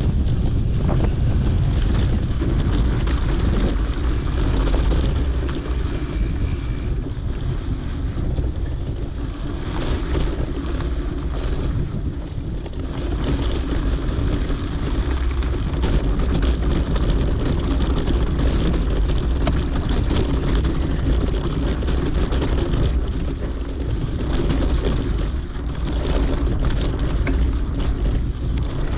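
Wind buffeting a GoPro's microphone while a mountain bike rolls along a dirt trail, with a steady low rumble and frequent small clicks and rattles from the bike and tyres.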